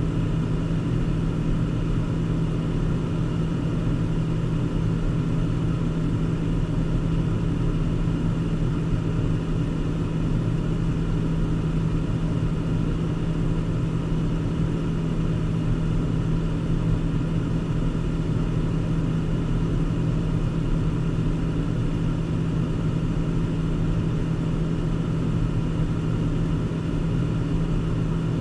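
Car driving: a steady engine and road drone with a constant low hum, unchanging throughout.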